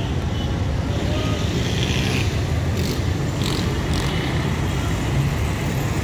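Motor vehicle engine running steadily amid street traffic, with a couple of short sharp noises near the middle.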